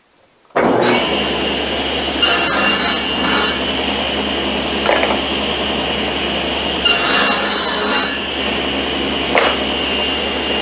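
Table saw switched on, running steadily with a high whine, and making two crosscuts through plywood on a crosscut sled, about two seconds in and again about seven seconds in; each cut is followed by a short knock.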